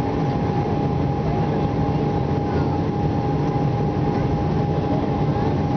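Steady cabin noise of an Embraer 190 airliner climbing after takeoff: its GE CF34-10E turbofan engines and the airflow make a constant low rumble, with a steady high tone held over it.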